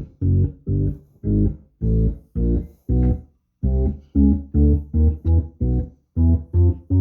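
Hammond B3 bass pedals sounded one at a time: a quick run of short, deep organ bass notes, about two or three a second, each fading away, climbing higher in pitch near the end.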